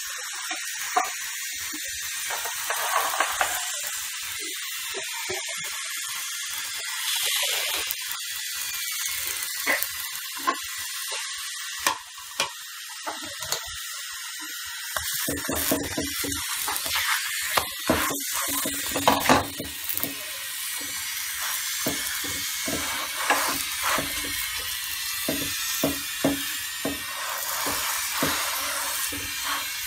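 Oil sizzling under a stuffed paratha frying on a nonstick tawa: a steady sizzle with scattered sharp pops and crackles.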